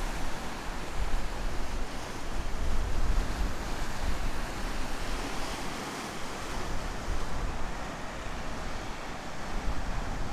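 Ocean surf: a steady wash of breaking waves, with wind rumbling on the microphone.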